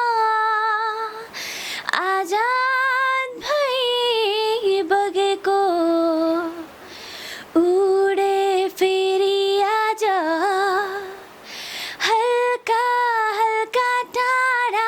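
A young woman singing a Nepali song solo, with no instruments, holding long notes that waver in places and pausing briefly for breath between phrases.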